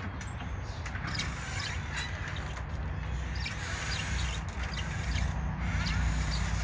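Birds calling outdoors in short, scattered chirps and calls, over a steady low rumble.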